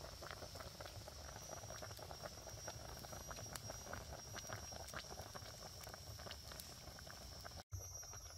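Chicken soup boiling in a pot over a wood fire, a dense irregular bubbling and crackling, with a steady high-pitched hum over it. The sound drops out for an instant near the end.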